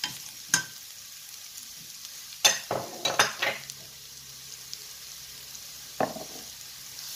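Chopped onions, garlic and ginger sizzling in hot oil in a nonstick frying pan, a steady faint hiss. A cooking spoon scrapes and knocks against the pan a few times, in a cluster about two and a half to three and a half seconds in and once more near the end.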